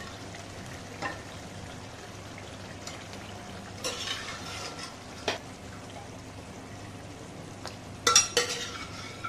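Thick masala gravy sizzling and bubbling in a non-stick kadai, broken by a few short knocks and clatters as boiled goat trotters are put into the pan. The loudest clatters come just after eight seconds in.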